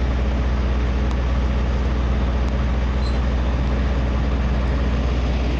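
Heavy engine running steadily at idle, a constant low hum over a broad rushing noise.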